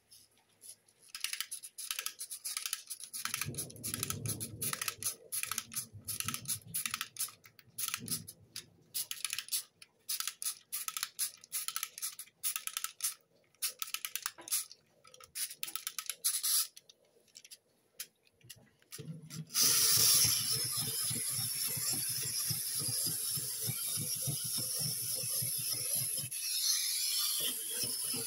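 Zarwolf Zoids toy mechanism: rapid, irregular plastic clicking for the first half, then from about twenty seconds in the toy's small motor and plastic gearbox running steadily with a fast, even clatter.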